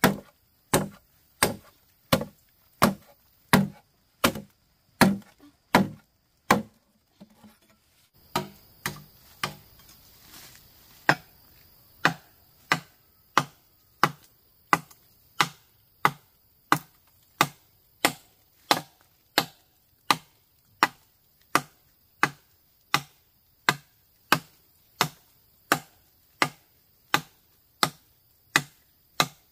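Steady chopping: a blade strikes over and over, about three strokes every two seconds. The strokes pause for a second or so about seven seconds in, then carry on at the same pace.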